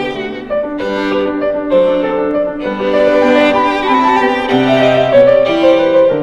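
Background music: bowed strings, violin and cello, playing a slow melody with piano.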